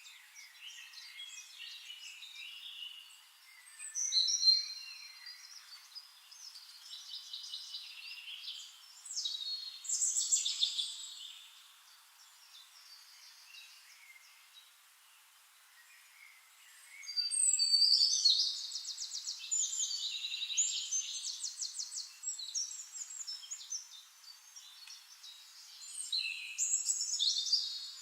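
Songbirds singing in separate phrases of varied whistled notes, with a quiet pause in the middle and a long, fast trill a little past halfway.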